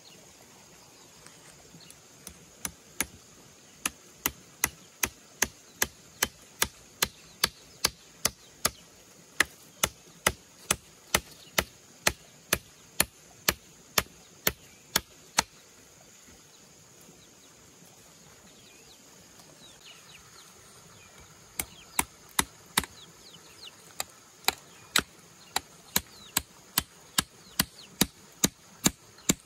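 Hand hammer striking nails into bamboo poles in a steady rhythm, about three blows every two seconds. The blows stop for about six seconds midway, then resume.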